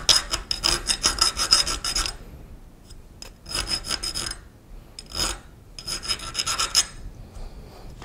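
A small round file rasping on the inside corners of a cast-iron box bed casting held in a vise, cleaning up the cast inside radii. Quick short strokes for about two seconds, a pause, then several shorter spells of strokes.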